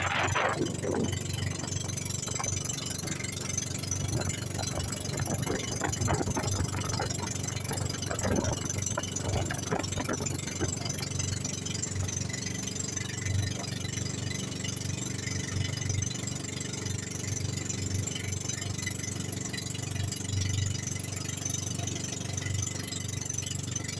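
Engine of a motorized outrigger boat (bangka) running steadily under way, a continuous low drone with a hiss of water and air over it.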